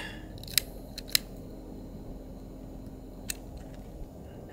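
A few sharp clicks as a lighter is struck to light a kerosene-soaked cloth torch: two about half a second apart near the start, and one more about three seconds in.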